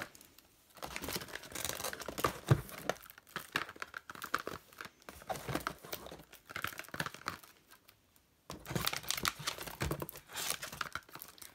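Plastic wrapping and bags crinkling, with small knocks and clicks of boxed products, as hands rummage through a cardboard shipping box and lift out cellophane-wrapped perfume boxes. The rustling starts about a second in and stops briefly about eight seconds in before starting again.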